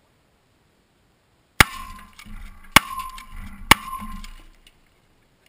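Three Benelli shotgun shots about a second apart, heard from beside the target as the pellets smash into a laptop and the scrap around it. Each sharp crack is followed by a brief metallic ring and clattering debris.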